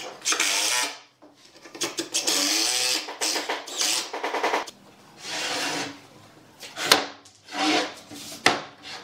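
Cordless Makita driver driving wood screws into pine in several short bursts, the motor pitch rising as each burst starts. Near the end, a couple of sharp wooden knocks.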